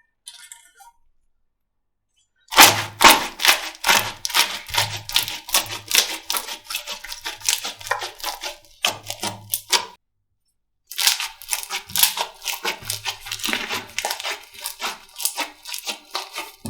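Slime being squeezed and poked, a dense run of wet clicks and crackling pops with soft low thuds. It starts a couple of seconds in, stops for about a second near the middle, then resumes.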